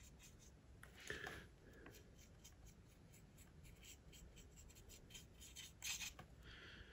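Faint strokes and dabs of a small paintbrush laying wet wash onto the panels of a plastic model wagon, with a couple of soft knocks from handling, about a second in and again near the end.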